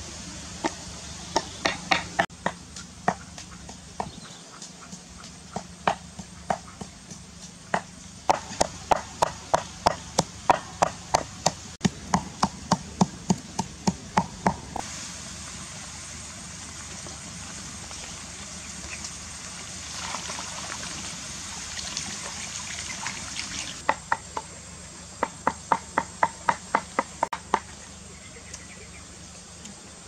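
A pestle pounding in a mortar in quick runs of sharp knocks, about three a second, stopping and starting again. In the middle comes a steady bubbling hiss of water boiling hard around eggs in a large wok.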